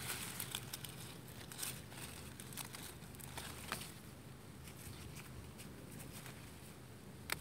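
Faint rustling of strawberry leaves and small snaps of stems as ripe strawberries are picked by a gloved hand, with soft crackles mostly in the first half and one sharper click near the end.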